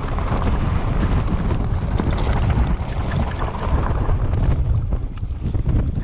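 Wind buffeting an action camera's microphone: a loud, uneven low rumble with a scatter of short clicks and rattles.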